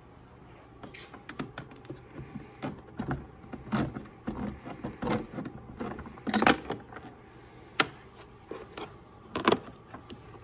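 BMW E30 trunk-lid tool kit being opened and handled: a string of clicks, knocks and rattles as the hinged cover is swung down and the metal tools shift in their plastic tray, the loudest knock about six and a half seconds in.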